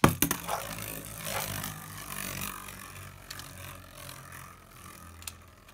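A Beyblade Burst spinning top lands in a plastic stadium with a quick clatter right after its ripcord launch. It then spins in the bowl with a steady whirring scrape that slowly dies down.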